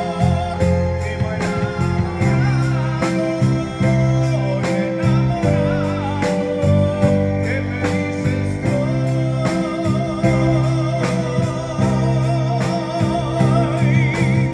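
Live band playing a slow ballad: electric bass holding sustained low notes under a steady drum beat, with keyboards and a lead melody with heavy vibrato on top.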